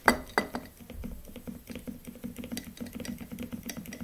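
Pump of a ceramic hand-soap dispenser being pressed over and over: a sharp click right at the start, then a quick, uneven run of small clicks. The soap is slow to come out.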